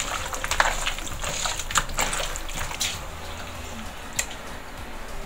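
Hands squishing and turning flour-coated marinated quail pieces in a plastic bowl: wet squelching with short sharp clicks that thin out after about three seconds, and one more click a little after four seconds.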